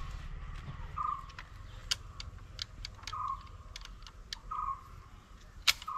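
An animal call: a short, slightly falling note repeated four times, one to two seconds apart. Scattered sharp clicks and ticks come between the calls, and the loudest is a single click near the end.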